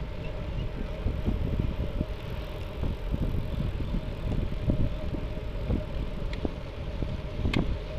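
Rumbling, gusty wind noise and road noise while riding a bicycle at speed, with a sharp click near the end.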